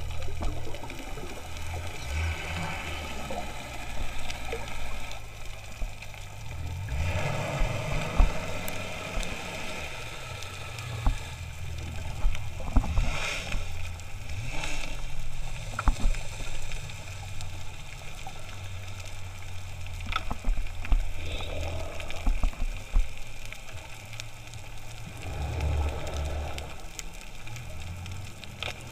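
Muffled underwater sound picked up by a camera in a waterproof housing: a steady low rumble with scattered sharp clicks and a few brief swells of water noise as the snorkelers move.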